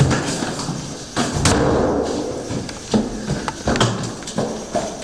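A series of irregular thumps and knocks, about half a dozen, with a stretch of rustling and shuffling between them in the first half.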